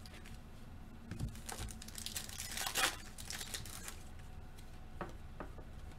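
Foil wrapper of a Panini Contenders football card pack being torn open and crinkled, loudest from about two to three and a half seconds in, followed by two light taps about five seconds in.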